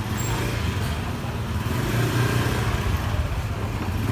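Motor scooter engine running at low speed close ahead, a steady low hum that grows a little louder around the middle.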